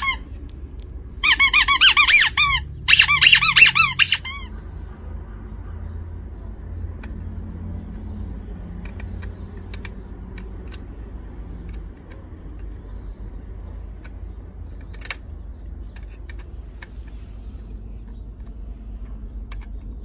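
Toy bicycle bulb horn, a rubber squeeze bulb on a plastic trumpet, honked twice in quick succession about a second in. Each honk is a high, squeaky toot of just over a second that wavers in pitch. A single faint click follows much later.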